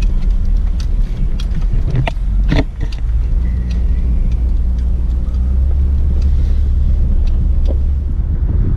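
Truck driving along a bumpy road: a steady low engine and road rumble, with frequent short knocks and rattles.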